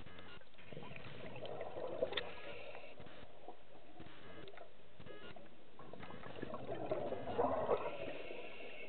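A scuba diver's regulator breathing heard underwater: two bursts of exhaled bubbles about five seconds apart, over a steady underwater hiss.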